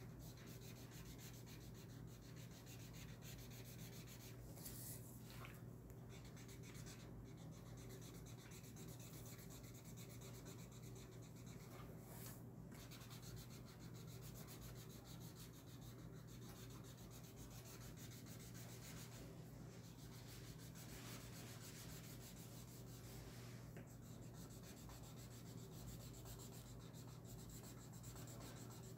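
Faint scratching of a broad felt-tip marker rubbed back and forth on paper while colouring in, over a steady low hum.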